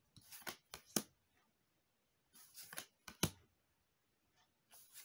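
Magic: The Gathering cards sliding against each other and snapping as they are flipped from the front of a hand-held stack to the back. The sound comes in three short bursts of soft rubbing and sharp clicks, about two seconds apart.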